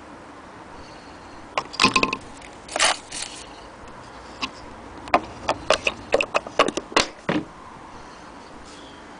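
Handling noises in the wooden accessory compartment of an antique Singer sewing machine case: small metal attachments clicking and rattling against each other and the wood. There is a cluster of clicks about two seconds in, a short scrape just after, then a quick run of sharp clicks and rattles between about five and seven and a half seconds.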